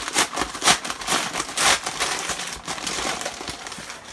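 Brown paper mailer envelope crinkling and rustling as it is handled and pulled open, with irregular crackles, the sharpest about half a second and a second and a half in.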